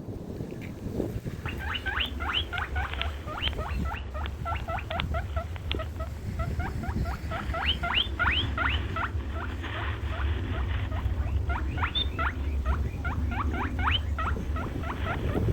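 Animal calls: bouts of many short, quick rising chirps, several a second, over a steady low hum.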